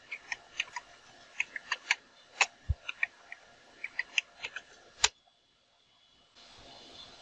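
Computer keyboard typing: a run of irregular key clicks, ending in a single louder keystroke about five seconds in as Enter is pressed. A faint steady hiss starts near the end.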